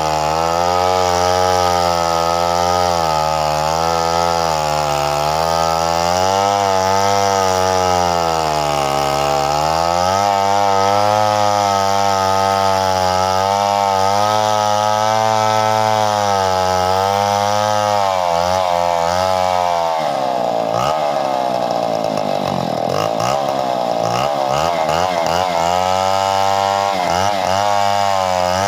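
Two-stroke chainsaw running and cutting wood, its engine pitch rising and falling under load. From about two-thirds of the way in, the pitch swings up and down more widely and unevenly.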